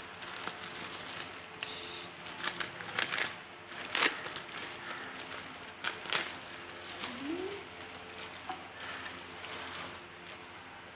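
Plastic monitor-stand parts and packaging being handled: scattered clicks, knocks and rustles, the sharpest at about three, four and six seconds in.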